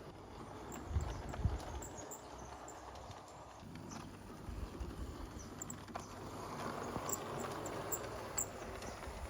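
Marbles rolling down a marble-run track: a continuous rolling rumble with scattered small clicks, and two heavier knocks about a second in.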